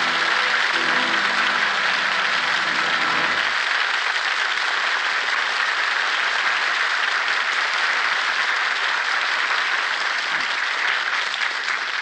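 An orchestra's closing chords, the act-ending music, stop about three and a half seconds in, under a radio studio audience applauding steadily.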